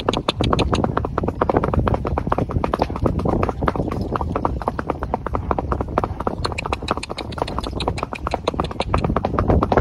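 Horse's hooves clip-clopping on a concrete floor: a steady, close-spaced run of hoofbeats carrying a rider.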